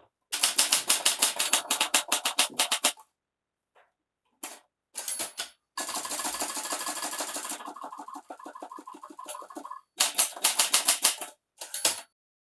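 Typewriter being typed on in fast bursts of key strikes, several a second, with a few single strokes between and a longer continuous rattling stretch in the middle.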